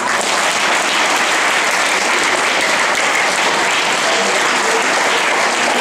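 Audience applauding. The clapping starts suddenly and keeps up steadily.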